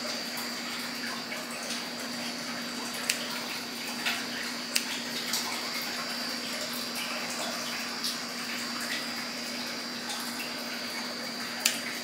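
A few sharp snips of grooming scissors trimming hair at a dog's ear. They sound over a steady hum and hiss of room noise.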